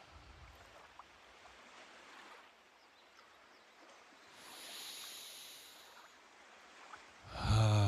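A man's breath and voice in a toning exercise: a soft, long in-breath about halfway through, then near the end a low, steady voiced sigh starts abruptly and is the loudest sound.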